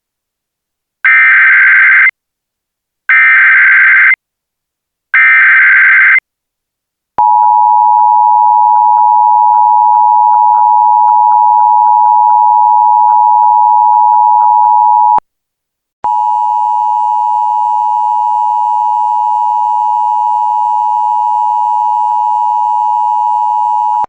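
Emergency Alert System header: three short bursts of data tones, about a second each, then a steady attention tone for about eight seconds, a brief break, and a second steady tone of about the same pitch for about eight seconds more.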